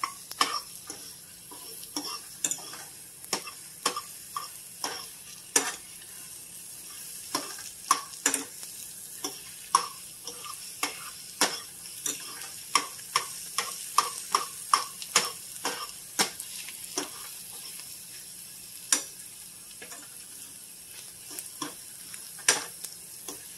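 A metal fork stirring scrambled eggs in a nonstick frying pan, its tines clicking and scraping against the pan in quick, irregular strokes over a faint steady sizzle of the eggs cooking. The stirring pauses for a few seconds near the end, then starts again.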